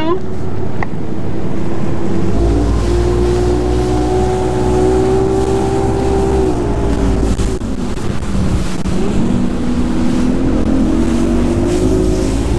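Bass boat's outboard motor running at high speed across choppy water, with wind buffeting the microphone. The engine pitch holds steady, sags about seven seconds in, then climbs again near the end.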